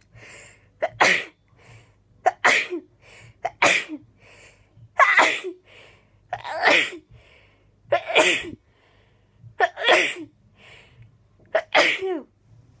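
A person in a rapid sneezing fit: eight sneezes about every second and a half, each with a quick sharp intake of breath just before it.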